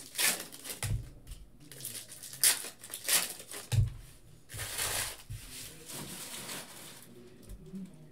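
Trading-card packs and stacks of cards being handled: foil pack wrappers crinkling and cards rustling, with a few dull knocks as a stack of cards is tapped square on the table, about one second and four seconds in.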